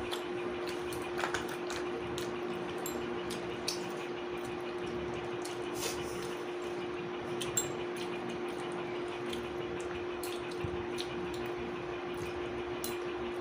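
A steady hum with a constant tone, and a few scattered light clinks of plates and utensils.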